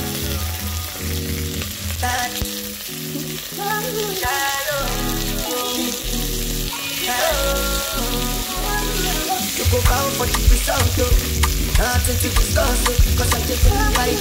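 Food sizzling in a frying pan and being stirred, under background music with a steady bass line.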